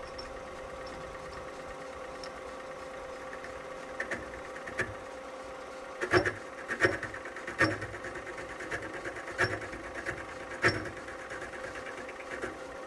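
Small bench lathe running with a steady motor and gear hum while the tool is fed by hand into the turning part. Irregular sharp clicks and scrapes from the cut come every second or so from about a third of the way in.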